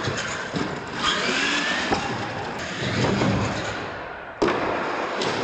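Radio-controlled monster truck's electric motor whining as it drives and jumps off ramps, with a sharp knock from a landing about two seconds in.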